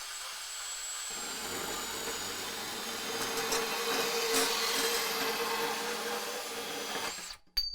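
DeWalt Atomic 20V MAX cordless compact bandsaw running and cutting through a workpiece: a steady motor hum under a rasping cutting noise that grows louder in the middle, then stops shortly before the end, followed by a couple of light clicks.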